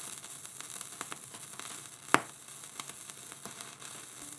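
Vinyl record surface crackle: a steady hiss dotted with small clicks, and one louder pop about two seconds in.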